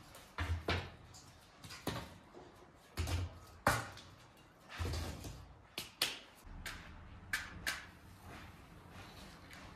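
Dry wooden sticks knocking and clattering as firewood is pushed down into an in-ground tandoor oven pit: about ten sharp knocks, a few of them with a dull low thud.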